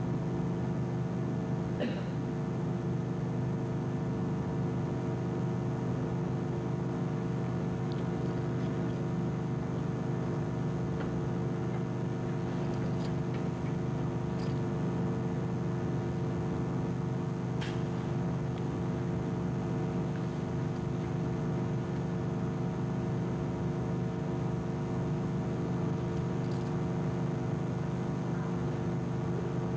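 Steady electrical hum with several pitched layers, in a pause with no speech; a few faint clicks sound scattered through it.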